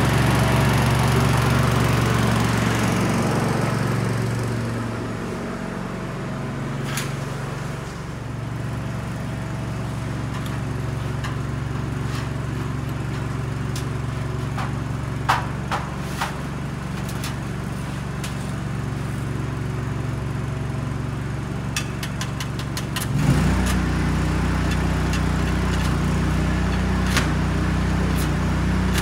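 The engine of an engine-driven welder-generator running steadily, with a few sharp metallic clicks and knocks. About 23 seconds in, the engine note steps up to a different, slightly louder pitch.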